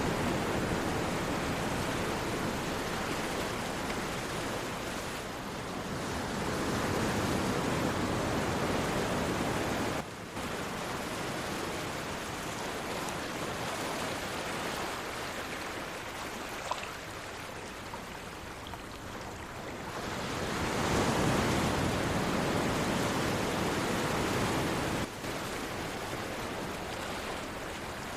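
Ocean surf washing in steadily, swelling louder twice and easing back between the swells.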